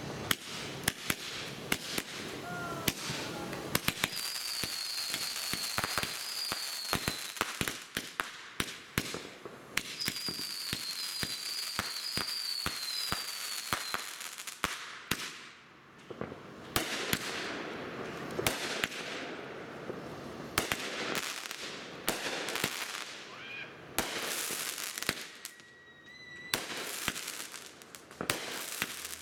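A Brother Fireworks 'Bling Bling' 200-gram, 36-shot consumer cake firing: a fast string of sharp launch pops and bursting reports in clusters, with a couple of brief lulls between them.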